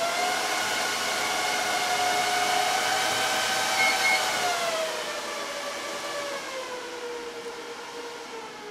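HP ProLiant ML350 G6 server's cooling fans running fast with a loud, steady whine. About four and a half seconds in they slow down: the whine falls in pitch and gradually gets quieter.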